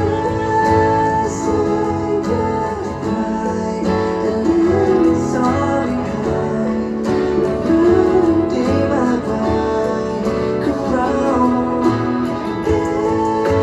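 Live band playing over a stage PA: guitars and drums with a singer. The music comes in suddenly at the start.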